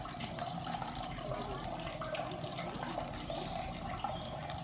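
Steady running water, an even splashing hiss with small drips and ticks.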